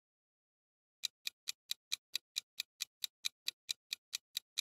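Quick, even clock ticks starting about a second in, about four or five a second: a countdown-timer ticking sound effect.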